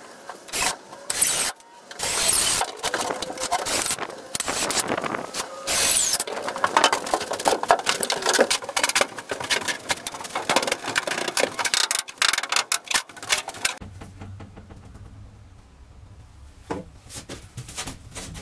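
Wooden boards being carried and handled: repeated knocks and scraping of wood for most of the stretch, dying down about fourteen seconds in, with one more knock near the end.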